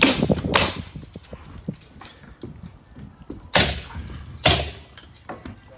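Nails being driven into wood wall framing: four loud, sharp bangs, two close together at the start and two more about three and a half and four and a half seconds in, with a few fainter knocks between them.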